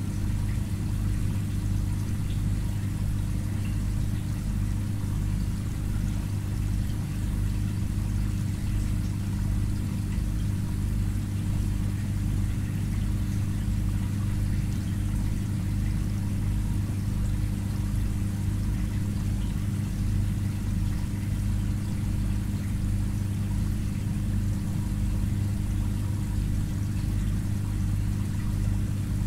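Aquarium filter running: a steady low hum with a constant wash of pouring, trickling water.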